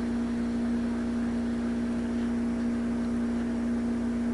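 A steady background hum with one strong pitch and fainter evenly spaced overtones above it, unchanging throughout.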